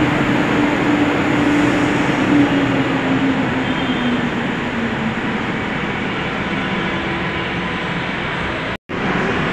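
Metro train pulling in alongside the platform and slowing to a stop, a steady rumble with a motor whine that falls in pitch as it brakes. The sound cuts out briefly near the end.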